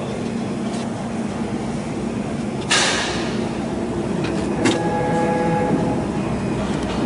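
CNC router running its material-thickness (tool-height) setting routine under the DSP controller: a steady machine hum, a sudden hiss about three seconds in that fades away, and a click near five seconds, after which a steady motor whine sets in.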